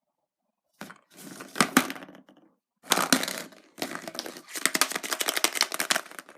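Foil-wrapped chocolate surprise egg being handled and unwrapped: crackling, crinkling foil and cracking in three bursts, the last and longest near the end.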